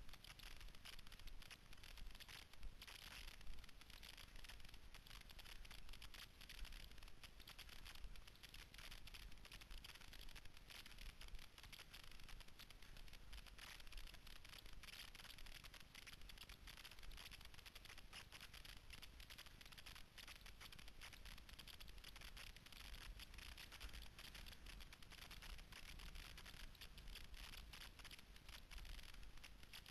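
Faint, steady hiss and scrape of cross-country skis gliding downhill over snow, with many small ticks and a low rumble underneath.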